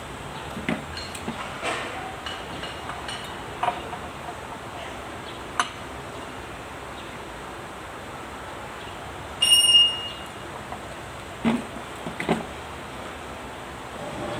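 Steel roller chain and sprocket of a rotary tiller's side chain drive being handled, with scattered metallic clinks and knocks. One louder clank a little past the middle rings on with a clear metallic tone.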